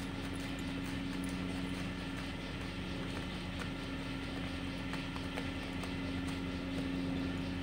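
Steady low mechanical hum, like a motor running, with faint, irregular scratching and clicks from a terrier digging into a rabbit burrow under a shed.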